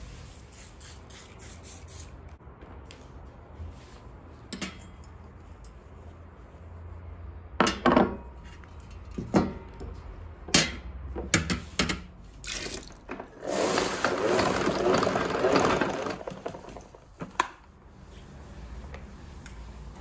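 Household cleaning sounds: after a quiet stretch, a run of knocks and clinks as glass jars and a metal tray are picked up and set down on a hard marble tabletop. Then about three seconds of rushing, like running water.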